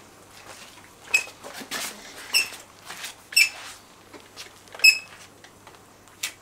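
Caulking gun squeaking with each squeeze of the trigger as it pushes construction adhesive out of a cartridge: a short, high squeak about four times, a second or so apart.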